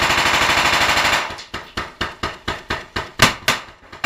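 Automatic gunfire: a dense continuous burst for about the first second, then a string of separate sharp shots at about four a second.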